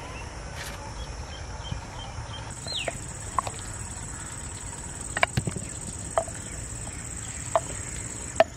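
Outdoor ambience: an insect's steady high-pitched buzz comes in about two and a half seconds in and holds. Over it come a short falling chirp and a few scattered light clicks, with a wooden spoon lifting boiled potatoes out of a clay pot.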